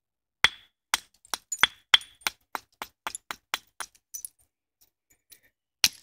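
Deer-antler billet clicking against the edge of a flint handaxe in a quick, even run of about a dozen light strokes, roughly three a second, then a pause and one louder click near the end.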